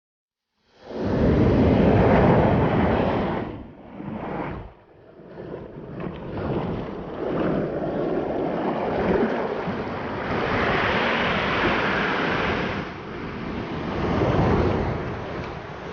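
Surf breaking on a beach, with wind buffeting the microphone. It starts abruptly under a second in and rises and falls in surges.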